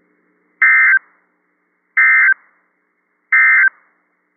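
NOAA Weather Radio SAME digital data: three short, identical bursts of screeching data tones about 1.4 seconds apart. These are the end-of-message code that closes an alert broadcast.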